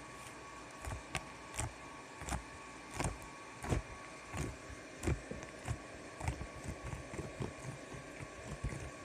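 Green slime being poked and squished by fingers, giving a string of irregular short pops and clicks, about two a second and coming faster in the second half.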